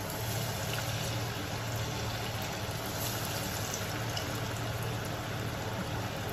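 Chana dal masala vadai frying in hot oil in a kadai: a steady sizzle and bubbling over a medium-low flame, with a low steady hum underneath.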